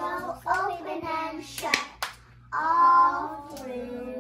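A group of young children singing a song together, with two sharp hand claps about halfway through, between sung phrases.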